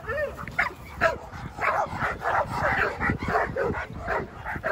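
Pit bulls barking and yipping, many short barks in quick succession, some overlapping.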